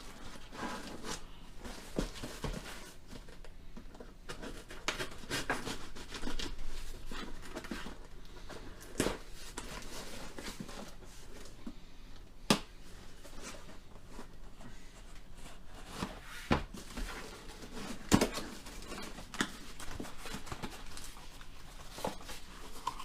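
Packaging being handled and opened by hand: irregular rustling and crinkling with scattered sharp clicks and knocks, the loudest about halfway through and again about four fifths of the way in.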